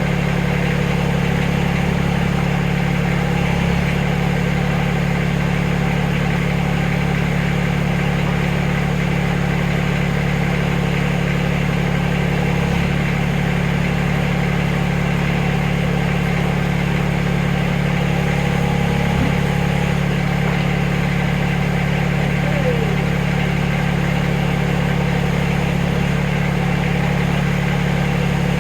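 Backhoe engine running steadily at a constant speed.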